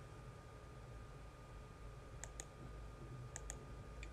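Computer mouse button clicking: a quick press-and-release pair about two seconds in, another a second later, and a single click near the end, over a faint steady hum.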